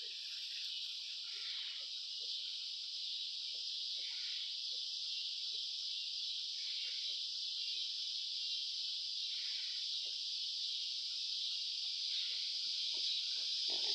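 Steady high-pitched insect chorus, with soft short grunts from the mini pigs underneath, the grunts coming more often near the end.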